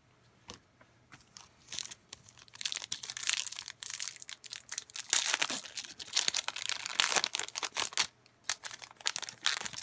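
Foil trading-card pack wrapper being torn open and crumpled by hand: irregular crinkling and crackling that starts about a second in and is loudest around the middle.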